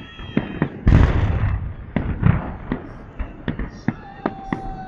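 Fireworks salute: aerial shells bursting overhead in a rapid series of sharp bangs, with one heavy boom and low rumble about a second in.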